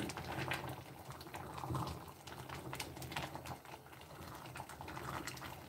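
Wooden spoon stirring a thick potato stew in a metal pot, with irregular light clicks and scrapes of the spoon against the pot.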